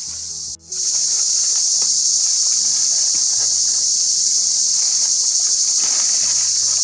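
Loud, steady insect chorus, a dense high-pitched hiss. It cuts out for a moment about half a second in, then comes back louder and holds.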